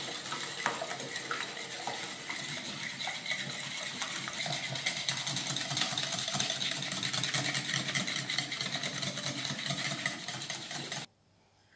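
Wire whisk beating egg yolks and sugar in a ceramic bowl: a fast, steady clatter of wire ticking and scraping against the bowl. It cuts off suddenly about eleven seconds in.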